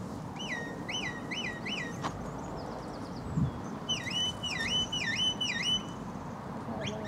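A shepherd whistling commands to a border collie. First come four quick rise-and-fall notes, then after a short pause about five dipping notes: two different whistled signals for directing the dog.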